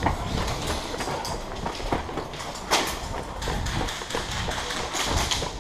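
Footsteps and the rattle and rustle of worn gear as an airsoft player moves off at the start of a game, heard from a head-mounted camera, with a sharper knock a little under three seconds in.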